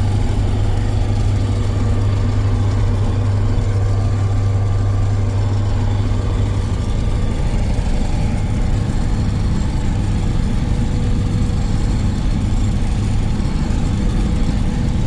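Kirovets K-700 tractor's diesel engine running steadily under way, a continuous low drone that eases slightly about seven seconds in.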